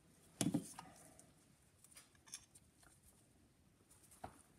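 Handling noise at a workbench: a knock about half a second in, then a few faint clicks of a screwdriver and metal parts of a phonograph spring motor being moved about.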